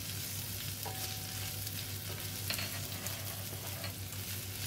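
Carrots and snow peas sizzling in hot oil in a nonstick wok while a wooden spatula stirs and scrapes them around the pan. A steady low hum runs underneath.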